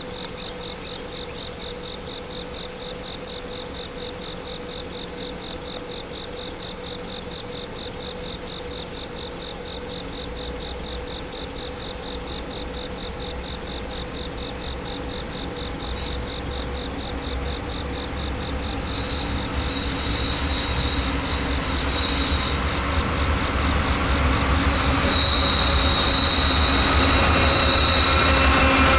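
Freight train led by GE diesel locomotives approaching and slowing for a stop: a low engine and rail rumble grows steadily louder, and from about two-thirds of the way through a high metallic wheel squeal joins in, loudest near the end. Crickets keep up a steady pulsing trill at first.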